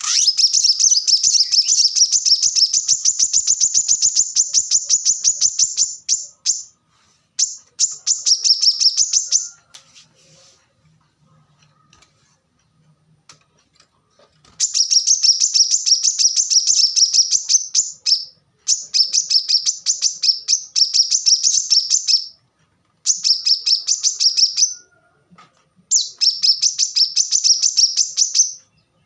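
Brown-throated sunbird (kolibri kelapa) singing: rapid runs of sharp, high chirping notes. The bursts last a few seconds each, with short pauses and one longer pause about halfway through.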